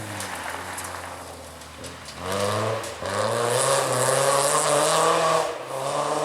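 Rally car engines at full throttle: one car's engine fades and falls in pitch over the first two seconds, then another accelerates hard, its revs climbing and dropping back through quick gear changes.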